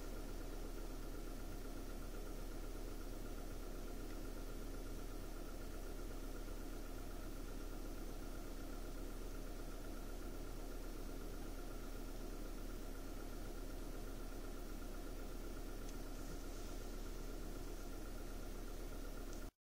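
Car engine idling, a steady hum heard from inside the cabin.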